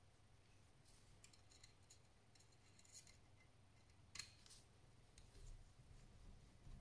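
Near silence with a few faint, light clicks and ticks of small parts being handled, the sharpest about four seconds in.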